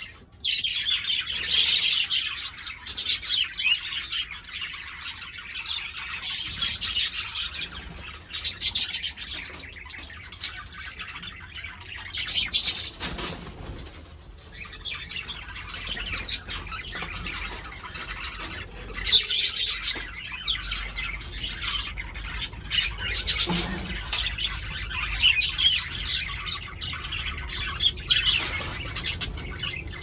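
Cockatiels chirping and calling again and again, in busy bursts.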